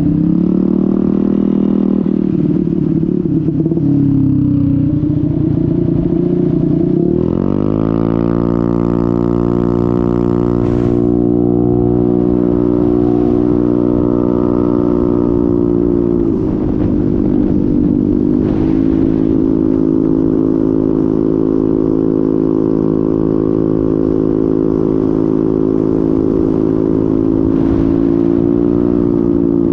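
Honda MetRuck scooter's small engine running under way. Its pitch climbs as it accelerates about a quarter of the way in, then holds steady at cruising speed, eases off briefly near the middle and picks back up.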